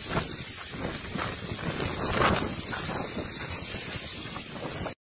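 Strong gusting wind of a dust storm buffeting the microphone, with a louder gust about two seconds in; it cuts off suddenly near the end.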